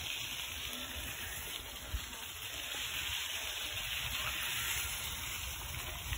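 Bicycle tyres rolling over a wet dirt trail: a steady hiss over a low rumble, with one sharp knock about two seconds in.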